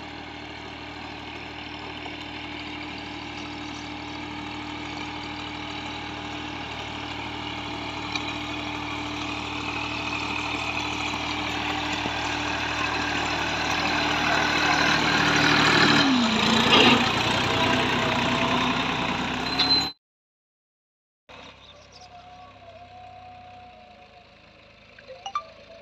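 Massey Ferguson 260 tractor's three-cylinder diesel engine running at a steady note under load while pulling a tillage implement. It grows louder as it approaches and passes close by about sixteen seconds in, where the engine note dips briefly. After a short gap it is heard again, much fainter and from afar.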